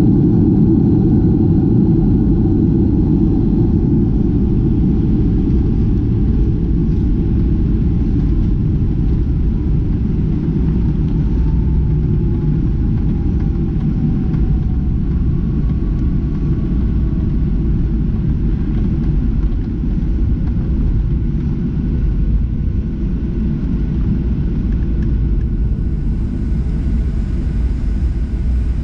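Boeing 737-700 airliner noise: a loud, steady low rumble, with a faint whine that slowly falls in pitch through the middle.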